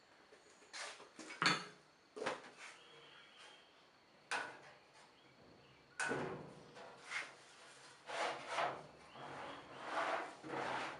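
Metal tool chest drawers being slid open and shut, with a string of clunks and rubbing scrapes, several sharp knocks spread through.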